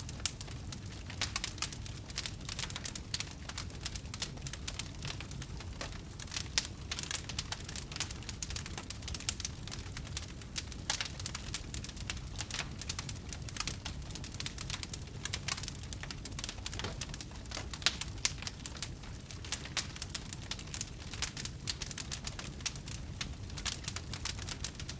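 Wood campfire crackling: a steady scatter of small sharp pops and snaps, over a low steady background.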